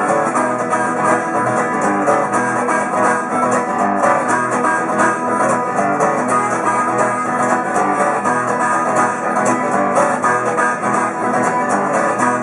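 Live music: an instrumental passage with guitar to the fore, played steadily with no singing.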